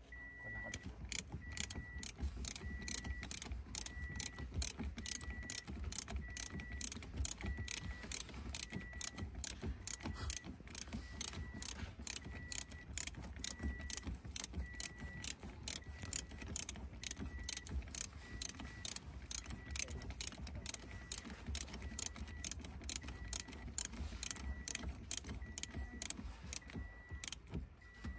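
Ratchet wrench clicking rapidly as it turns a bolt, in quick runs of clicks. A short high beep repeats about once a second throughout.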